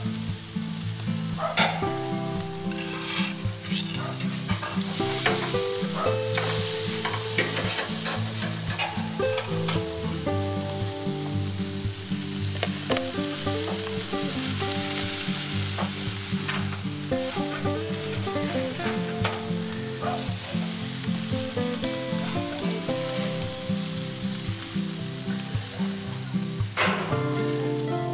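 Beef and chicken kebabs and sausages sizzling on a gas barbecue grill as a steady hiss, with background music playing over it.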